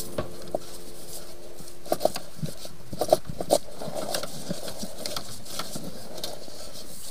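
Scattered light knocks and clicks of corrugated plastic sink drain hoses and fittings being handled with a gloved hand, over a steady background noise.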